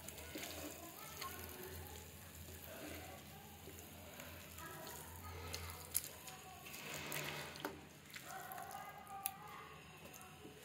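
Chicken drumsticks in thick chili sambal sizzling softly in a frying pan, with a spatula scraping through the paste and knocking against the pan a few times.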